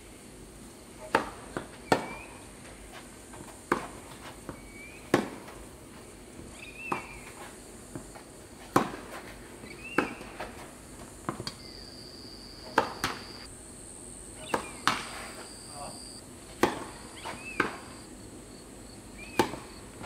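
Tennis rallies: racquets strike the ball back and forth with a sharp pock every one to two seconds, mixed with the ball's bounces on the court. Insects buzz steadily in the background, and a high steady drone comes in for a few seconds past the middle.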